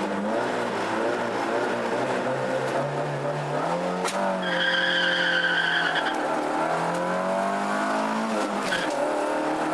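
Rally car engine held at revs on the start line, then launching about four seconds in with a squeal of tyres spinning for about a second and a half. The engine then accelerates hard, revs rising through a gear change near the end, heard from inside the cabin.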